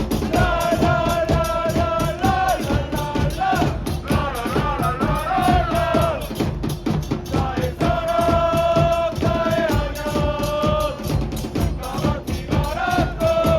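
Music: a melody of long held notes over a steady, dense drumbeat.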